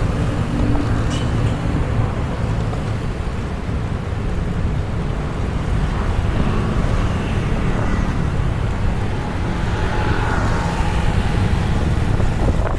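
Steady low rumble of wind and road noise on the microphone while riding a bicycle, with motor traffic on the road.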